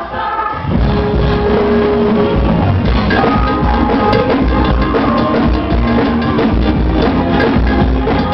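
Live forró band playing loudly with a driving drum-kit beat. The full band comes back in under a second in after a brief lull.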